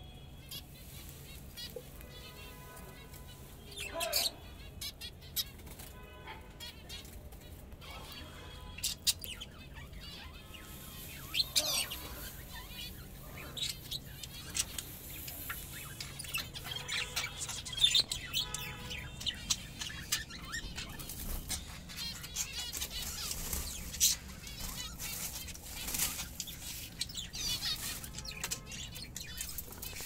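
Small cage birds, budgerigars and finches, chirping and chattering in many short repeated calls, with frequent sharp clicks and rustles among them.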